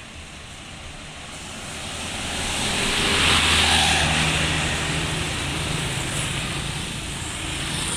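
Road vehicle passing close by: engine and tyre noise swell to a peak about three and a half seconds in, then fade, leaving a low, steady engine drone.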